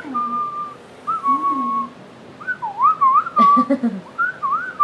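A person whistling: two short held notes, then quick warbling up-and-down notes. There are a few brief knocks about three and a half seconds in.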